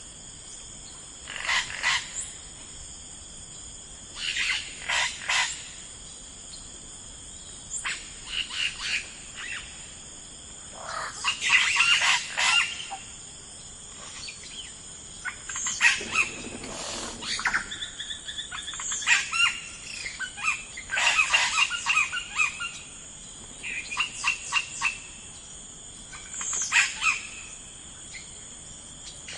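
Songbirds chirping in short bursts of quick notes, a new burst every two to three seconds, over a steady high background hiss.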